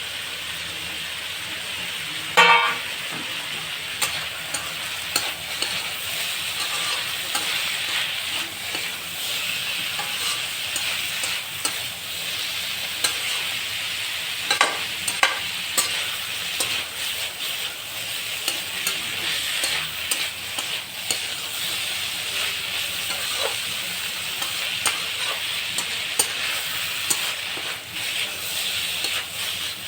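Chicken curry frying in a kadai, sizzling steadily while a spatula stirs it, with frequent clicks and scrapes of the spatula on the pan. There is one louder clank about two and a half seconds in.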